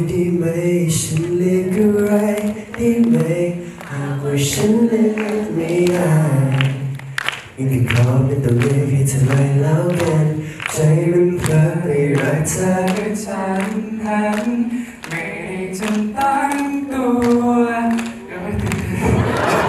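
Male voices singing a slow, melodic song unaccompanied into handheld microphones, the notes held and gliding with short breaks for breath.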